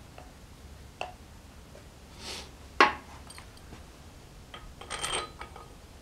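Light metal clicks and clinks of small steel bolts being handled, dabbed with anti-seize and fitted into the pulley's bushing. The sharpest click comes a little under three seconds in, with a short cluster of clinks about five seconds in.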